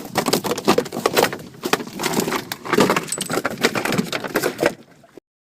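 Rapid, irregular clattering and knocking, which ends abruptly about five seconds in when the audio cuts out.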